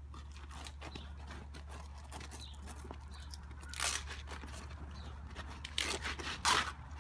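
A damaged roof shingle being torn and pulled loose: scattered scraping and crackling, with louder tearing bursts about four seconds in and again near the end.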